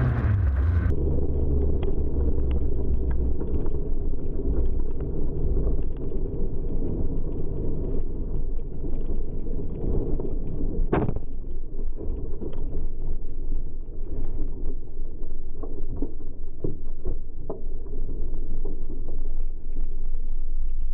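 Onboard sound of an INEX Legend race car on a dirt track: the engine running steadily, overlaid with a constant rattle of short knocks and clicks, and one sharp bang about eleven seconds in.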